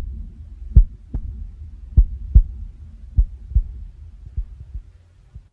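Slow heartbeat sound effect: paired lub-dub thumps about once every 1.2 seconds over a low rumble. They grow fainter toward the end and stop.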